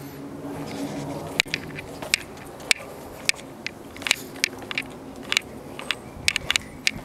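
Footsteps walking on a concrete path, a run of sharp clicks roughly one to two a second, over a low hum in the first two seconds.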